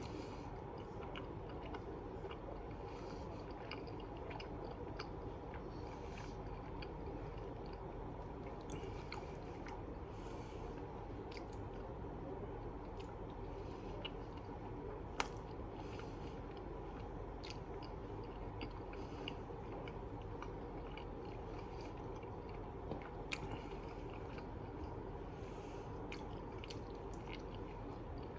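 Close-miked chewing and wet mouth sounds of someone eating cheesy food, with many small clicks and one sharper click about halfway through, over a steady low hum.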